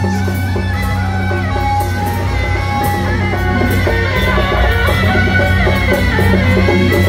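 Loud music: several melodic instruments play over percussion, with a steady low hum underneath.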